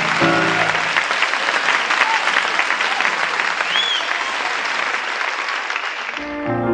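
Audience applauding loudly and steadily, fading near the end as a piano starts playing.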